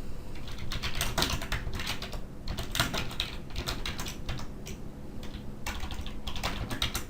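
Typing on a computer keyboard: a quick, irregular run of key clicks, entering a PowerShell command.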